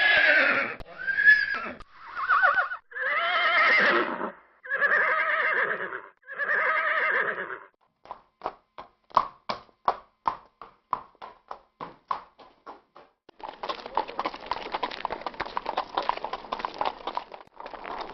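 Horse whinnying: about six separate neighs in a row, each a second or so long. Then hooves clip-clopping as a horse walks, first single spaced hoofbeats, then from about two thirds in a denser, busier run of hoofbeats.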